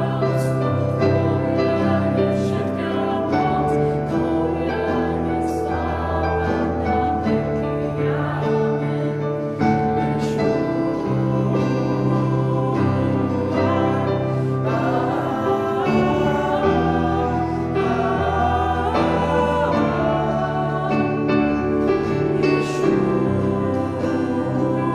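A small worship band performing a Slovak Christian song: a woman's and a man's voices sing together over a keyboard and a strummed acoustic guitar.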